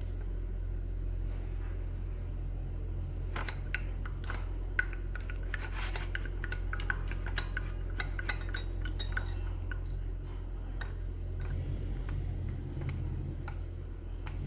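A spoon stirring in a glass, clinking quickly against its sides for several seconds from a few seconds in, mixing honey into parsnip juice. A steady low hum runs underneath.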